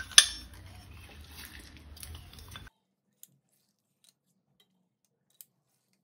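A hand-held metal lemon squeezer pressing lemon halves: one sharp metal click just after the start, then low handling and squeezing noise. The sound cuts off to near silence about two and a half seconds in.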